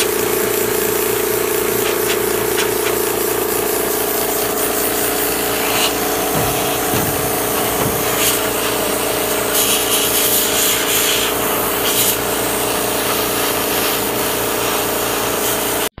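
Compressed air blowing in a loud, steady hiss with a hum beneath it, directed onto a heat-gun-warmed dent in a steel garage door panel to cool it quickly so the metal pops back out. It cuts off suddenly near the end.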